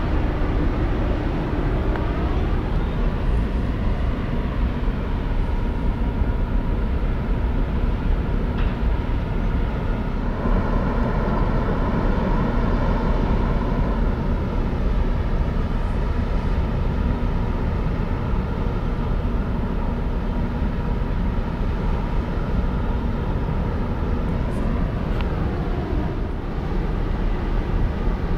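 Large passenger ferry's diesel engines running: a steady low rumble with several humming tones above it that bend in pitch near the start and again near the end.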